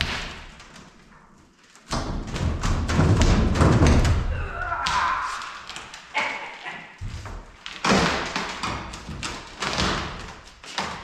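A series of knocks and thumps, with a stretch of heavy, low thumping about two to four and a half seconds in.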